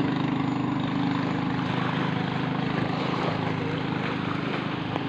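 Racing boat's stock-piston engine running at speed on a test run, a steady drone that slowly fades as the boat pulls away across the water.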